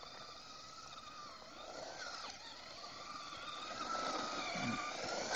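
Small electric motor of a toy remote control car whining, its pitch sliding up and down as it speeds up and slows, louder in the second half.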